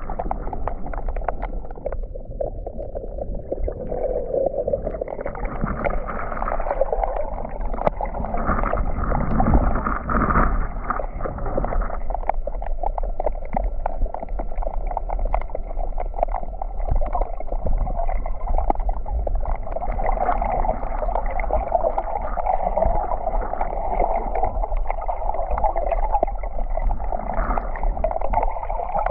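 Wind rumbling on the microphone, with sea surf washing behind it.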